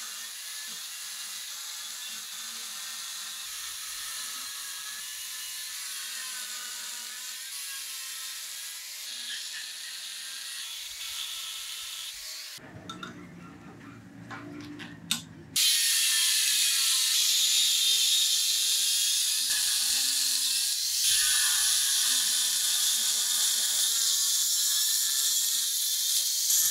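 Angle grinder with a thin cut-off disc cutting slots into a hardened steel file to form serrations, the pitch of the disc wavering as it bites. About halfway through it gives way to a short, quieter, lower passage with a few sharp knocks, then the grinder runs louder, grinding the serrated edge.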